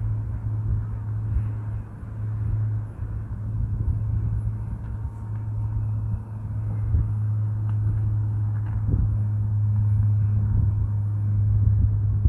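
Wind buffeting the microphone on an open hilltop: a steady low rumble with irregular gusts.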